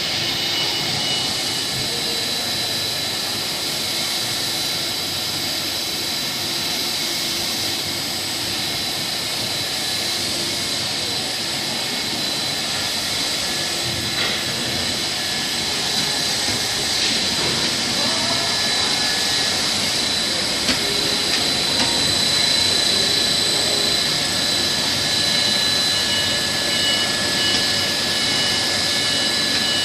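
Refrigerator door gasket PVC extrusion production line running: a steady machine hiss with several constant high-pitched whines over it.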